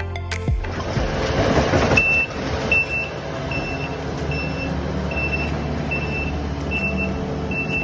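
Heavy construction machine engine running, with its reversing alarm beeping steadily about once every 0.8 seconds, starting about two seconds in.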